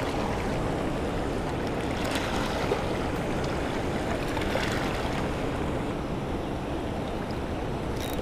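Steady rush of floodwater pouring over a concrete spillway and churning below it, with a few faint ticks.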